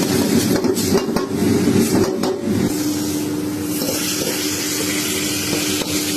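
Chicken stir-frying in a pan: steady sizzling with clicks and scrapes of the spatula, and a steady hum joining about three seconds in.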